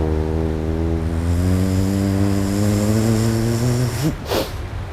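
A man's low voice chanting one long, steady note for about four seconds, ending in a sharp breath.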